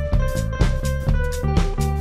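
Background music: a drum kit keeping a steady beat, about four strikes a second, under a melody of held notes.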